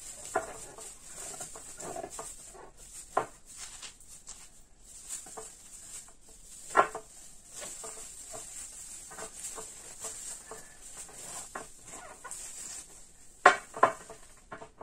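Shredded cabbage and carrot pressed down by hand into a tall glass jar, giving an irregular rustling and packing sound. A few sharp clicks stand out, two of them close together near the end.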